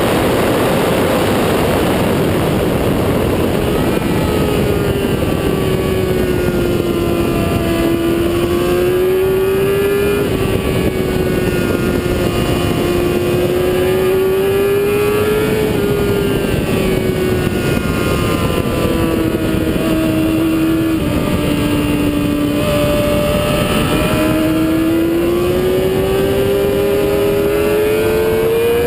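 Motorcycle engine running hard at speed under heavy wind noise, its pitch rising and falling slowly with a few sudden steps in between.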